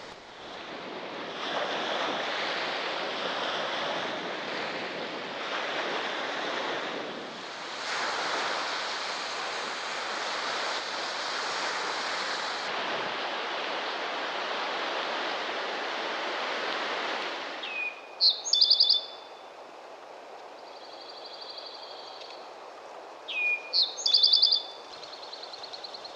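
Wind gusting on the microphone with waves washing on the shore, surging every few seconds, then cutting off suddenly. In quieter woods a songbird then sings twice, about five seconds apart: each song is a short slurred note followed by a fast, high trill.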